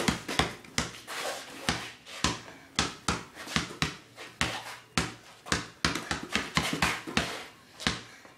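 Basketball dribbled fast on concrete: quick bounces, about three a second, slightly uneven in spacing and loudness.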